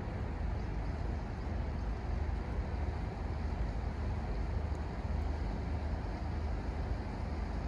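Steady low rumble of urban background noise by a river quay, with no distinct events.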